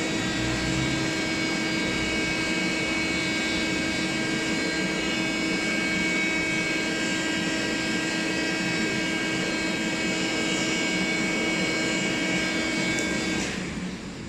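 The oven's electric 'dragon's breath' blower running, forcing air into a burned-down charcoal fire to bring the heat back up: a steady whine over a rush of air. It stops near the end.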